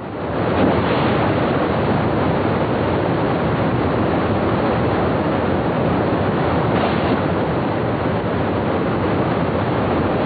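Loud, steady rush of whitewater rapids churning over boulders, swelling about half a second in and then holding level.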